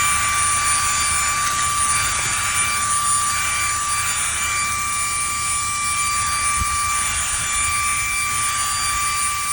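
Eufy H30 handheld cordless vacuum running at full speed: a steady high motor whine over a rushing of air, just after switching on.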